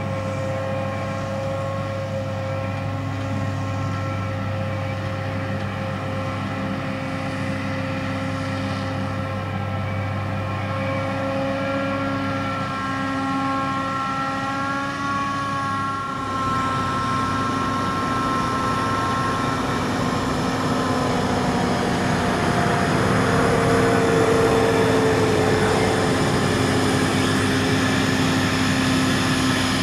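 John Deere 8800i self-propelled forage harvester chopping whole-crop rye, its engine and chopper running steadily alongside a tractor pulling a trailer. The sound gets louder and noisier from about halfway in as the harvester comes closer.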